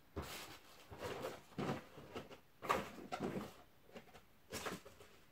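Hands rummaging through scrapbooking supplies, including a plastic compartment box of small embellishments: about half a dozen short bursts of rustling and clattering.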